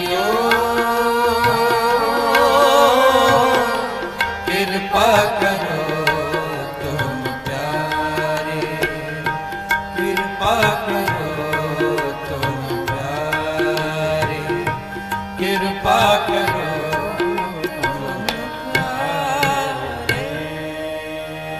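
Shabad kirtan music: tabla keeping rhythm under a wavering, gliding melody that starts a new phrase about every five seconds.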